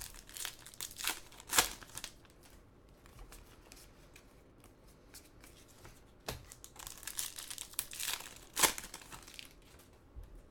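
Trading-card pack wrappers crinkling and tearing as packs are opened by hand, in two spells of crackling: one in the first two seconds and another from about six to nine seconds.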